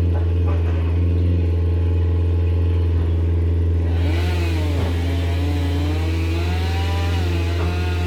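A motor engine running steadily with a low drone; from about four seconds in a second engine joins, revving up and down with added hiss.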